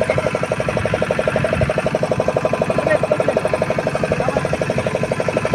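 A fishing boat's engine running steadily, with a rapid, even chugging.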